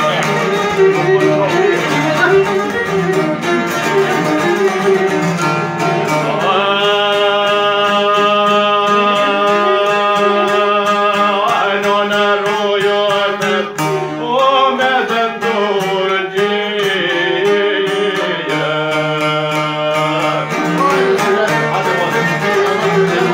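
Albanian folk music: long-necked plucked lutes (çifteli and sharki) and a violin played together. About six seconds in, a man's voice joins in a long, bending sung line.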